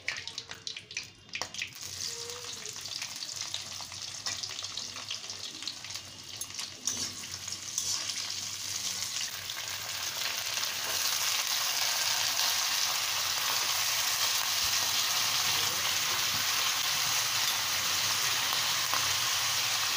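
Oil frying in a kadhai with a bay leaf, with a few light clicks. About halfway through, unboiled potato and drumstick pieces go into the pan, and the sizzle grows louder and turns steady.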